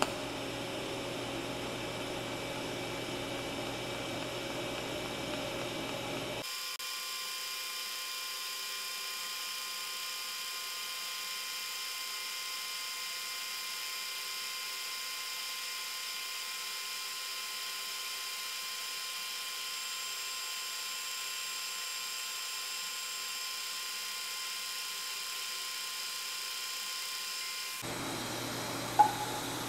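TIG welding arc running steadily on a stainless steel pipe turning on a positioner. About six seconds in the sound changes abruptly to a thin, steady high whine that lasts until near the end. A sharp click comes just before the end.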